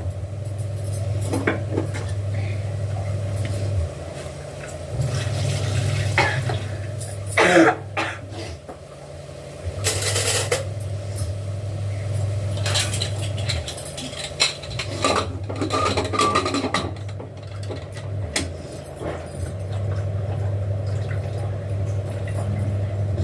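Hands mixing and scraping flour and water for chapati dough in a kneading bowl, with scattered scrapes and clinks against the dish over a low steady hum.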